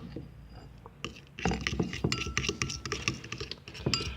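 Metal spoon clinking and scraping against a glass bowl while mixing slime, fairly quiet for the first second and then a quick, irregular run of clinks with a faint glassy ring.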